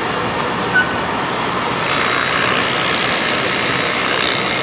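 Automatic web inspection and sheeting machine running: a steady mechanical noise, with one short high tone just under a second in.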